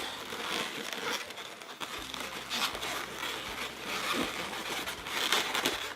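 Inflated latex 260 modelling balloons rubbing against each other as they are pushed and pulled through one another by hand, with a steady crinkling rub that swells twice.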